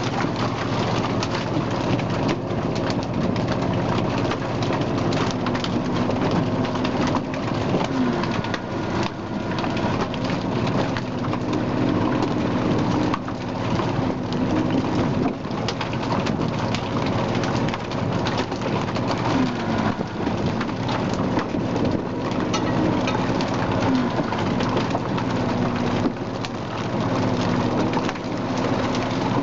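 A purse seine full of salmon hauled aboard over the rail: fish thrashing and water streaming off the net in a dense, even patter, over a steady machine hum whose pitch wavers now and then.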